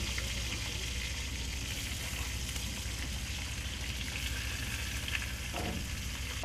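Whole fish frying in hot oil in a metal pan: a steady sizzle with small crackles and spits, over a low steady hum.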